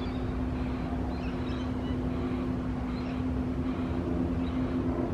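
Steady low hum of a distant vehicle over a low rumble, with a few faint high chirps.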